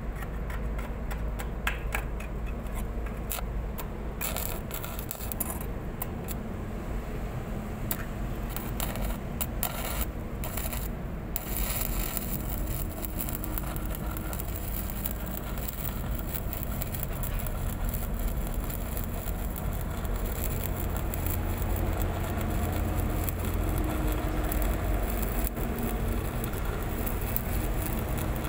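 Arc welding on a steel pipe joint: the arc sputters and clicks on and off at first, then settles into a steady crackling hiss from about twelve seconds in. Under it runs a steady low engine rumble.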